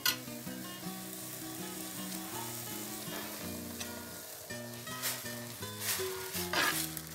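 Squash blossoms and onion sizzling in a clay cazuela as blended salsa is poured in, with a spoon stirring; the sizzle flares up in several loud bursts over the last two seconds. Background music plays under it.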